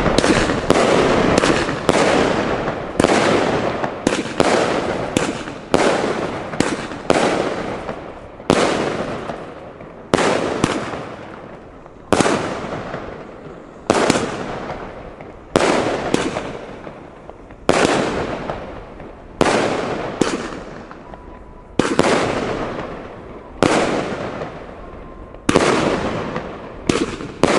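Bonfireworks Brocade Rain firework battery (a 300 g cake) firing gold brocade shots one after another. Each shot is a sharp bang that trails off over a second or so. The shots come in quick succession for the first several seconds, then about every one and a half to two seconds.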